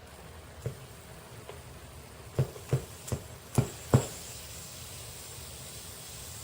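A series of short, dull knocks: one, then five in quick succession about two and a half to four seconds in.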